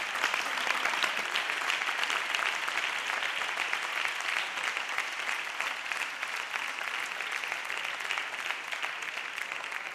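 Parliament deputies applauding together: a steady, dense clapping from a large audience.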